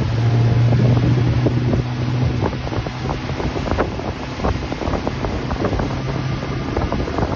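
Motorboat engine running at speed while towing, a steady low hum that is plainest in the first two seconds, with wind buffeting the microphone and the wake rushing and splashing behind the boat.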